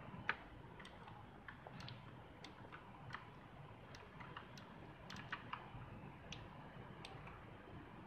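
Keys of a mechanical keyboard being pressed one at a time: faint, irregular clicks, with one louder click just after the start.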